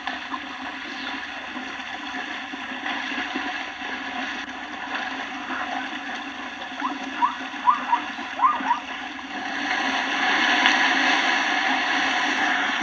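A zebra herd splashing through water, a steady churning rush that grows louder in the last few seconds. About halfway through comes a quick run of five short, rising, yelping calls.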